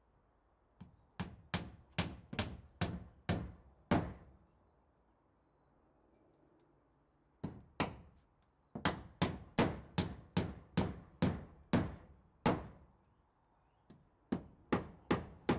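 Hammer blows driving nails into plywood siding on a timber-framed wall: runs of sharp strikes, about three a second, with pauses of a few seconds between runs.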